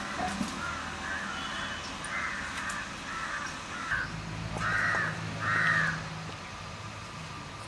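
Crows cawing, a string of short caws one after another, the last two the loudest.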